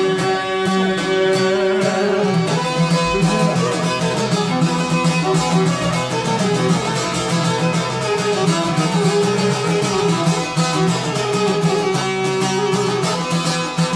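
Live Albanian folk instrumental: long-necked plucked lutes strummed in fast, even strokes over a steady drone, with a violin, playing continuously at a steady level.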